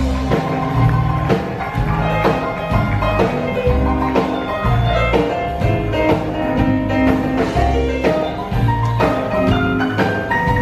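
Live rockabilly band playing an instrumental break: an electric keyboard plays quick runs of notes over upright bass and drums.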